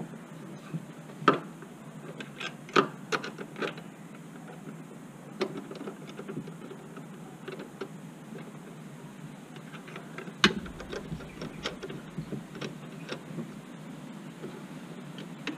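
Irregular clicks and knocks of a hatch brace's metal end fittings being handled and seated into the chassis mounts, with a cluster of small clicks early and one loud knock about ten and a half seconds in.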